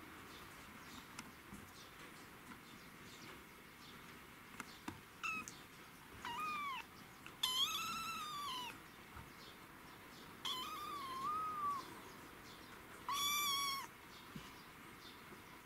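Young kitten, about six weeks old, meowing: five high-pitched mews, starting about five seconds in, the middle ones each over a second long, one of them rising and falling twice.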